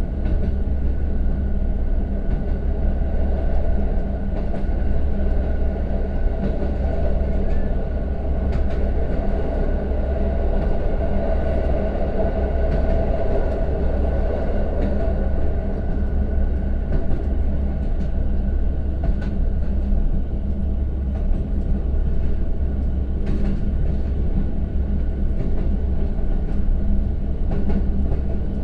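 Steady rumble of a KiHa 182-500 diesel railcar heard from inside the passenger cabin in a tunnel: wheels rolling on the rails together with the low steady drone of its underfloor DML30HSJ twelve-cylinder direct-injection diesel, with the power off as the train coasts, and a few faint clicks.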